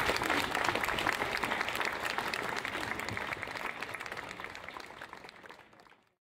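Audience applauding, a dense patter of many hands clapping, which fades away over the last few seconds and cuts off.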